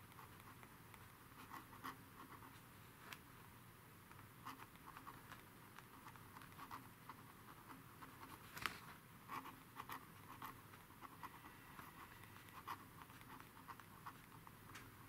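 A pen writing on paper: faint, irregular scratching of short strokes, with one sharper tick a little past halfway.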